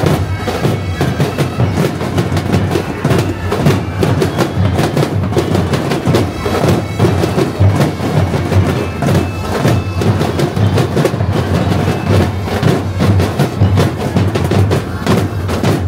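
Marching drum corps playing a continuous cadence on snare drums, bass drums and clash cymbals, with many dense, rapid strikes.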